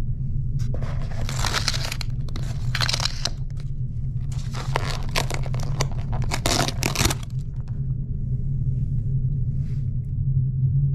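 Paper wrapping rustling and crinkling as an oval wooden bento box is unwrapped and opened, in three spells during the first seven seconds. Under it runs the steady low hum of the ferry's engines.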